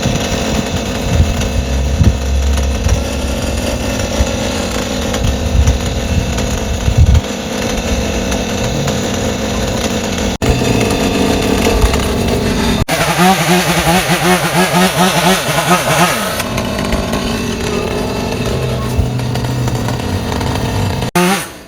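Chainsaw running while cutting limbs from an oak tree. Its pitched engine note rises and wavers for a few seconds about thirteen seconds in.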